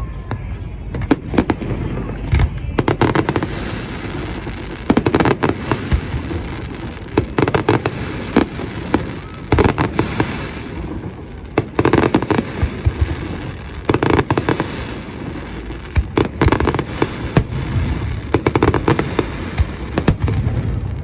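Aerial fireworks bursting in repeated volleys: clusters of sharp bangs and rapid crackling, a fresh cluster about every two seconds, over a steady low rumble.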